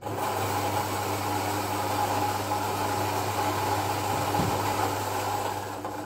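Fellow Ode Gen 2 electric coffee grinder grinding beans: a steady motor whir with a low hum. It starts abruptly and trails off near the end as the grind finishes.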